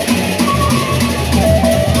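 Sasak gendang beleq gamelan playing: large double-headed barrel drums and crash cymbals keeping a steady rhythm under a sustained, slightly bending melody line, likely the bamboo flute (suling).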